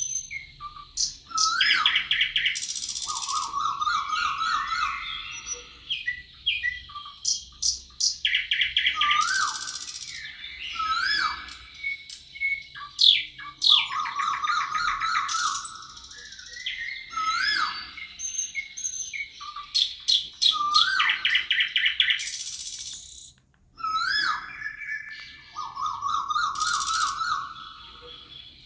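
Songbirds singing: short rising whistles, fast rattling trills and high buzzy phrases, overlapping and coming back again and again in similar sequences.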